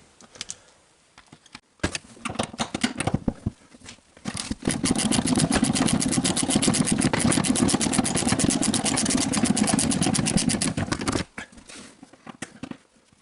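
A ratchet with a socket backing a seat bolt out. Scattered clicks first as the bolt breaks loose, then about seven seconds of fast, even clicking as it spins out, ending suddenly.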